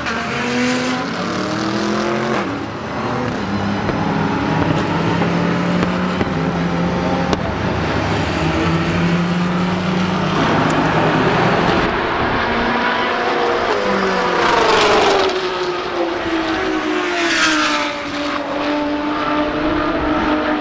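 GT race cars passing at speed one after another, their engine notes rising and falling as they go by. The two loudest passes come close together in the second half, about three seconds apart.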